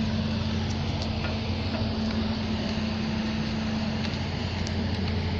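A steady low machine hum with a few faint clicks over it.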